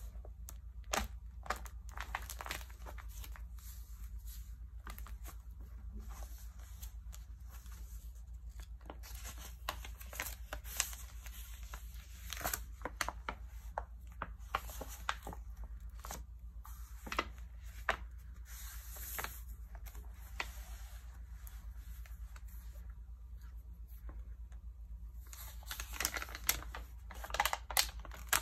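Glossy magazine pages handled and turned by hand: scattered crisp crackles and crinkles of the paper, coming thickest near the end, over a low steady hum.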